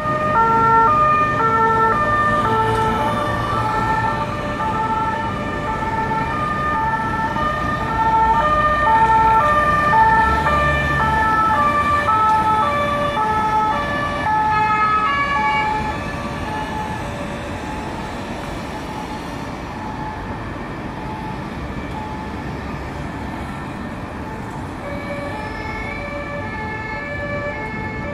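French two-tone police siren alternating between a high and a low note, loud for about the first fifteen seconds, then fading and returning faintly near the end, over the low rumble of passing traffic.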